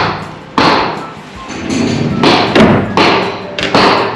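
Hammer blows, about half a dozen irregularly spaced strikes, each with a short echoing ring-out.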